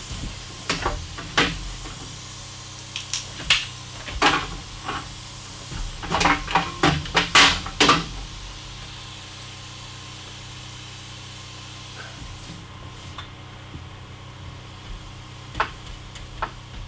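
Framing work with a pneumatic framing nailer on wooden studs: a string of sharp knocks and bangs, densest about six to eight seconds in, then a quieter stretch and a few more knocks near the end, over a steady low hum.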